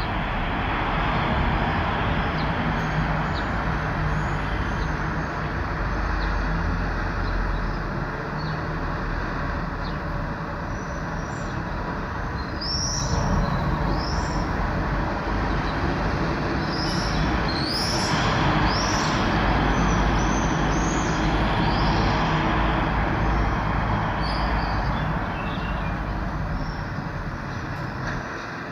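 Steady noise of road traffic, with small birds chirping again and again, high above it, from about eleven seconds in to about twenty-four seconds in.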